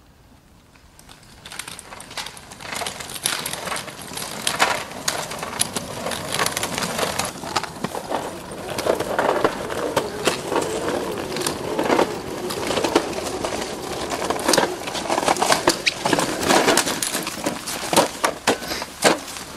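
Footsteps crunching on a gritty, snow-dusted road, with dense irregular clicks and rustles, starting about a second and a half in.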